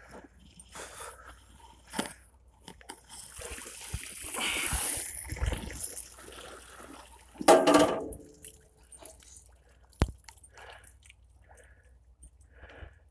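Homemade metal well bailer hauled up out of the river on a rope, water running and dripping off it. There is a loud clatter with a short ring about halfway through and a sharp knock a couple of seconds later.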